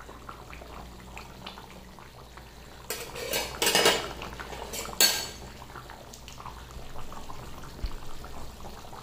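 Chicken curry bubbling in a steel kadai. From about three seconds in, a metal spatula clatters and scrapes against the pan and cooktop for about a second. A sharp clank follows at about five seconds as it is set down.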